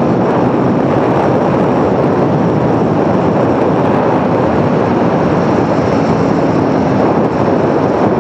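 Aprilia Tuono V4 1100 motorcycle ridden at speed: its V4 engine running steadily under dense wind and road noise.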